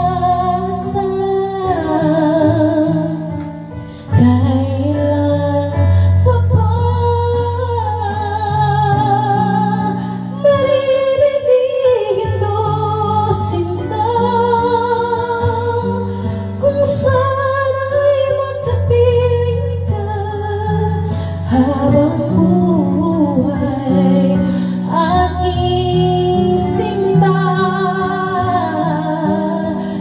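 A woman singing a Tagalog song with vibrato into a microphone, over a backing track with a steady bass line.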